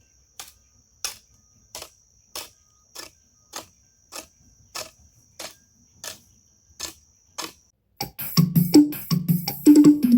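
A hoe chopping into grassy ground about a dozen times at a steady pace, over a steady high chirring of crickets; about eight seconds in, piano-like keyboard music begins.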